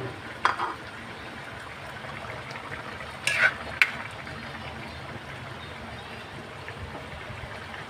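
Chicken caldereta in tomato sauce bubbling at a simmer in a wide metal pan, a steady crackling hiss. A few short, sharp sounds stand out about half a second in and again midway.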